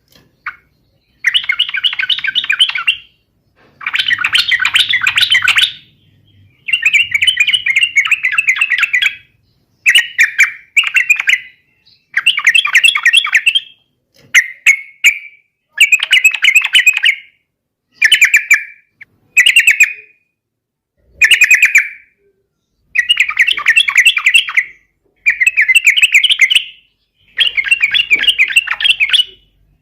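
Yellow-vented bulbul (trucukan) singing hard in a long run of short, bubbling, chattering phrases of one to two seconds each, with brief pauses between them. This is the energetic 'gacor' challenge song played to provoke other bulbuls into answering.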